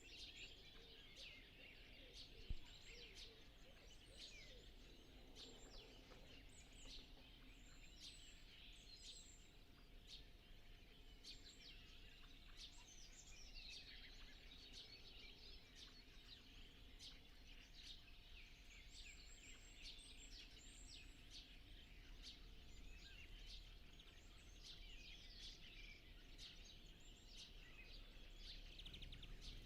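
Dawn chorus: many songbirds calling and singing over one another, faint, with one sharp click about two and a half seconds in.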